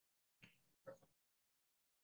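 Near silence, broken by two brief faint noises about half a second and a second in.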